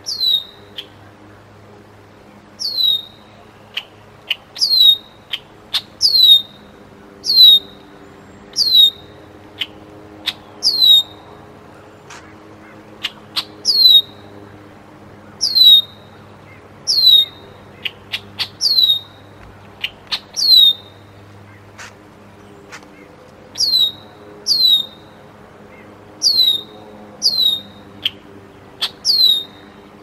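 Juvenile bald eagle calling: a long run of short, high, piercing whistles, each sliding down in pitch, repeated about every one to two seconds. A few faint clicks sound between the calls.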